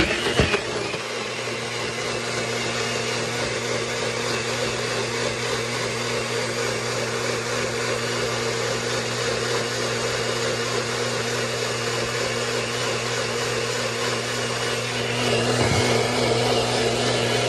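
Single-serve bullet-style blender running steadily, its motor whirring as it blends a milk smoothie. It grows a little louder near the end and stops right at the end.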